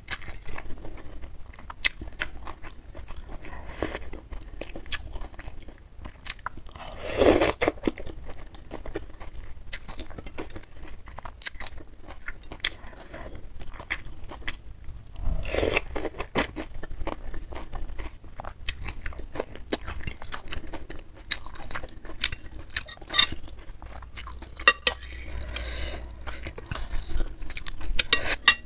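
Close-miked mouth sounds of eating rice vermicelli noodles, crunchy bean sprouts and mustard greens from a spicy beef meatball soup: chewing and slurping with many small crisp clicks. Two louder, longer sounds stand out about seven and fifteen seconds in.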